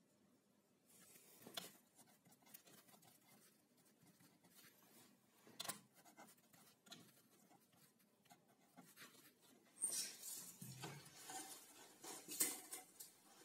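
Quiet handling sounds: a few sharp clicks and a pen scratching on paper, then a louder run of knocks and rustles near the end as a plywood panel is lifted and turned over.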